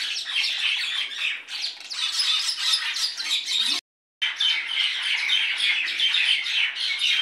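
Many birds chirping and squawking at once in a constant dense chatter. It cuts out completely for a moment about four seconds in.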